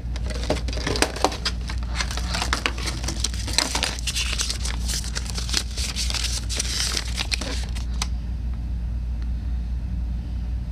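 Paper rustling and crinkling as a folded instruction leaflet is handled and opened out, with quick handling clicks; it dies down after about eight seconds, leaving a steady low hum.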